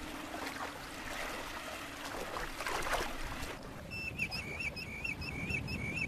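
Footsteps splashing through shallow water as a person wades, irregular sloshes for about three and a half seconds. The sound then changes abruptly to a high, wavering call over a low rumble.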